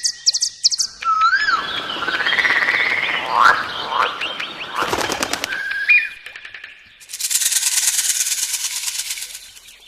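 Birds calling with a changing series of whistled up-and-down glides and chirps, then a fast buzzy rattle in the second half.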